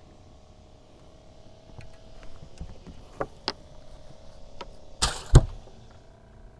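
Handling noise on a fishing boat as a caught crappie is taken in hand: a few light clicks, then two loud knocks about five seconds in, a third of a second apart, over a faint steady hum.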